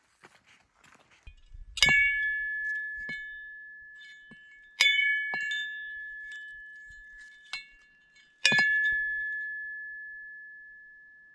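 A metal bell struck three times, about three seconds apart. Each strike rings on with a clear high tone that dies away slowly, with a few lighter taps in between.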